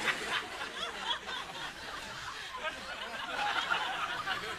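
Audience laughter, many voices overlapping, growing louder about three and a half seconds in.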